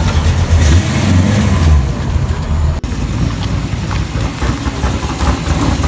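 Classic first-generation Chevrolet Camaro's engine running as it drives past close by, loudest in the first two seconds. After a sudden cut about three seconds in, a newer Camaro's engine runs as the car pulls forward.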